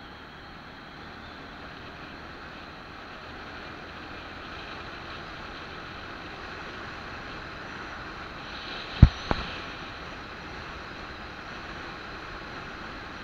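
Steady wind and road noise from a moving vehicle, picked up by a mounted camera. About nine seconds in there are two sharp knocks, about a third of a second apart.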